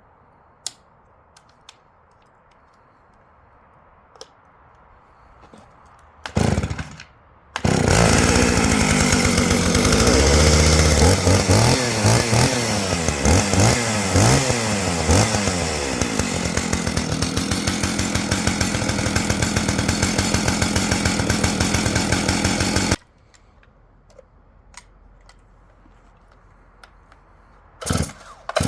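Stihl 49cc two-stroke chainsaw cold-started: a short burst about six seconds in, then the engine catches about a second later and runs with its speed rising and falling unevenly before settling into a steadier run. It cuts off suddenly about 23 seconds in, and a brief burst of sound comes near the end.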